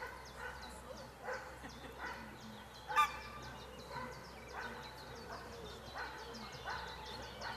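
A dog barking repeatedly in a steady series, a little more than one bark a second, with one louder bark about three seconds in.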